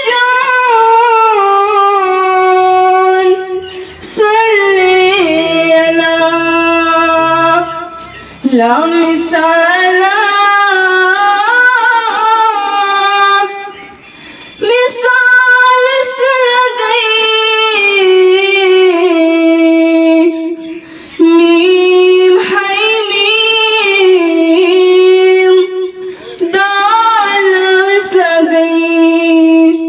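A girl singing a Kashmiri naat solo and unaccompanied, in long held notes that bend in pitch, phrase after phrase of several seconds with short breaks between them.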